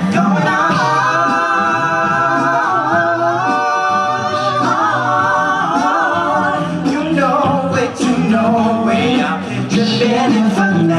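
Male a cappella group singing in close multi-part harmony, several voices holding and shifting chords together.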